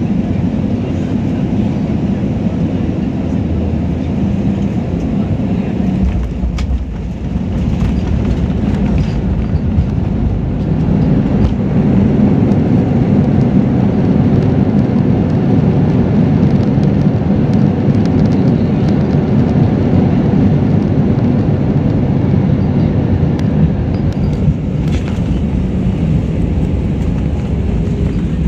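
Jet airliner cabin noise during landing on the runway: a loud, steady, deep rumble of engines and rolling, with a brief knock about six and a half seconds in. It grows louder from about ten seconds in.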